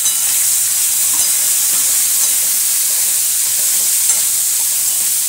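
Chopped onions sizzling steadily in hot oil in a metal kadai, stirred with a spatula.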